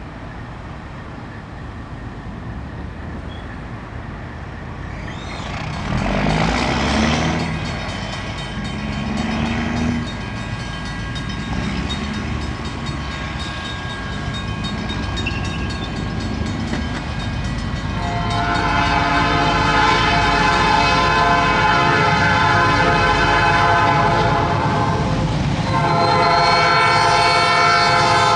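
A diesel locomotive rumbling as it approaches, then its air horn blowing a long chord starting about two-thirds of the way in, with a short break before a second long blast near the end.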